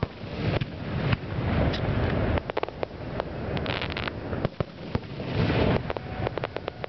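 Aerial fireworks shells bursting overhead: deep rumbling booms, broken up by runs of rapid crackling from crackle stars about halfway through and again near the end.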